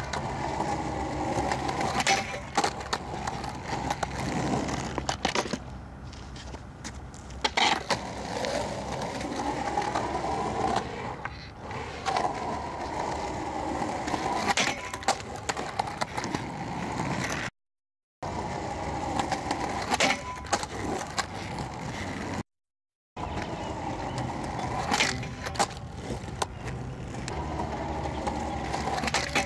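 Skateboard wheels rolling on smooth concrete, with repeated sharp clacks and scrapes as the board strikes the ground and slides its nose along a low metal rail in slappy frontside noseslides. The sound drops out to silence twice, briefly.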